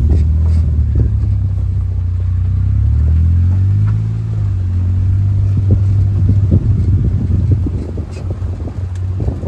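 A vehicle engine running while driving, its pitch rising and falling between about two and four seconds in, with knocks and rattles over the drive.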